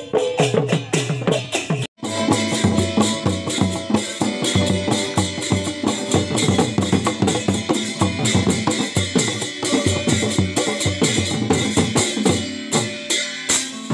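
Live folk music: conga-style hand drums struck by hand in a quick, steady rhythm, with an acoustic guitar playing along. The sound drops out for an instant about two seconds in, then the drumming carries on.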